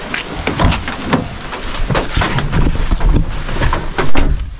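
Wind buffeting the camera microphone over rain noise while someone gets into a car, with a heavy thump about four seconds in as the car door shuts, after which it turns quieter.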